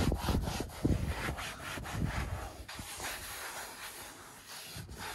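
A leather-care wipe rubbed back and forth over a car's leather seat: a run of irregular scrubbing strokes, louder in the first couple of seconds.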